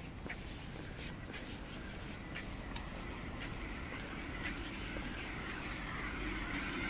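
Footsteps on pavement at walking pace, about two or three steps a second, over a low hum of city traffic that grows louder near the end as a vehicle approaches.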